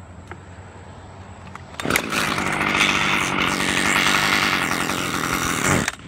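Chainsaw rising sharply to high revs about two seconds in, running flat out for about four seconds, then cutting off abruptly.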